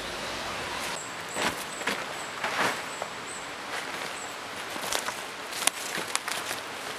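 Rustling and handling noises of a nylon dome tent being pitched, with short knocks and scuffs on dry leaf litter, over a steady background hiss. A faint high chirp repeats a few times a second for about three seconds, from about a second in.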